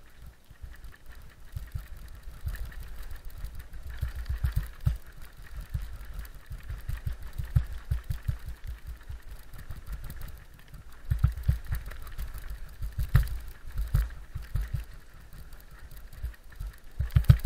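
Downhill mountain bike (Commencal Supreme 6) clattering down wet stone steps: repeated thuds and rattles as the wheels and suspension hit each step, over a low rumble. The hits come heaviest about two-thirds of the way through.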